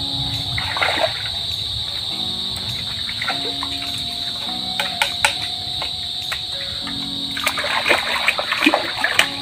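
Water splashing and sloshing as a person wades and reaches into a shallow creek: once about a second in and several times near the end. Behind it is a steady high insect drone and background music with held notes.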